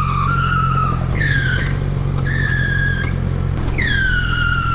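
Tire squealing in four separate squeals, each starting high and falling to a steady pitch, the last one long. Underneath, a motorcycle engine runs steadily.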